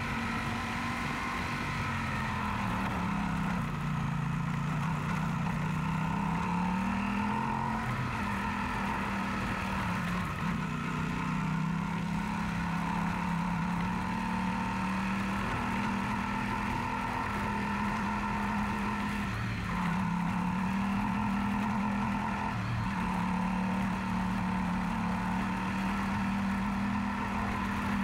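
Yamaha Super Ténéré motorcycle's parallel-twin engine running on the road. Its pitch drops for a few seconds a few seconds in, then rises again and holds steady.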